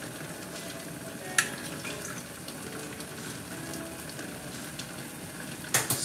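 Pot of tomatoes, mushrooms and kimchi sizzling steadily on the stove, cooking in its own juices without added water. A sharp click about a second and a half in and a couple of knocks near the end.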